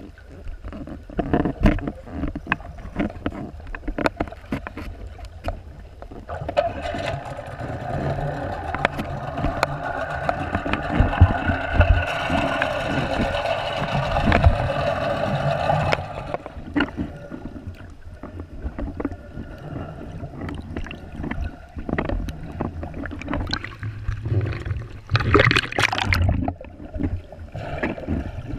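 Underwater sound picked up by a snorkeler's camera while swimming: muffled water movement with a low rumble and frequent small knocks and clicks. A steady hum runs for about ten seconds from around six seconds in, and a brief hiss of rushing water or bubbles comes near the end.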